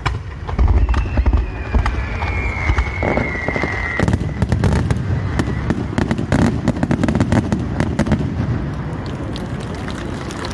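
Aerial fireworks going off: deep booms in the first couple of seconds, then dense crackling and popping throughout. A high whistle, falling slightly in pitch, runs for about three seconds near the start.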